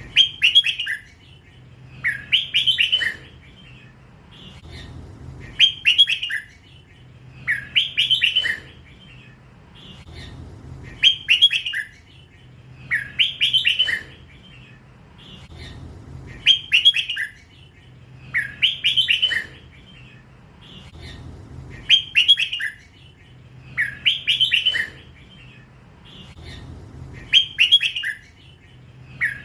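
Young hybrid red-whiskered bulbul singing its 'lak wai' song: short bright whistled phrases, each about a second long, repeated every two to three seconds. A faint steady low hum lies under the song.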